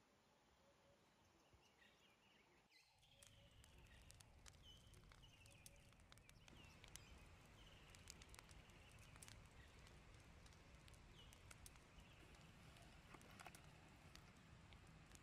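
Very faint, sporadic crackling of a red oak wood fire catching in a campfire pit, starting about three seconds in over a faint low rumble; before that, near silence.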